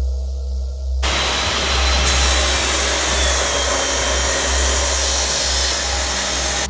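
Abrasive chop saws cutting steel, a loud, even grinding hiss that starts suddenly about a second in, over background music with a steady deep bass.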